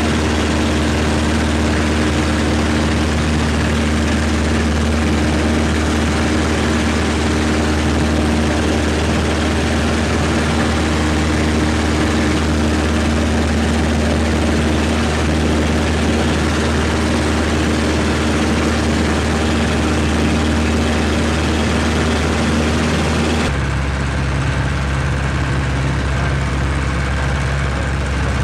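1946 Aeronca Champ's engine and propeller running steadily in flight, heard from inside the cabin. Near the end the note changes suddenly to a deeper, duller one.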